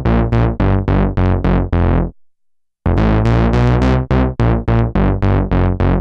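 Minimoog Model D playing a funk bass line in quick, short notes, on a patch of sawtooth oscillators in the low 32-foot range. The filter cutoff is turned down to take off some of the bite. The phrase breaks off about two seconds in for a moment of silence, then repeats.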